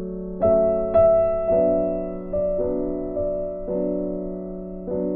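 Slow, gentle background piano music, with single notes struck about every half second to a second and left to ring and fade.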